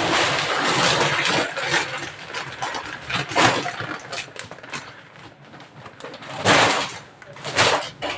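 Plastic vacuum storage bags packed with clothes crinkling and rustling as they are lifted and handled. The rustle is densest in the first two seconds, with louder crackles about a third of the way in and twice near the end.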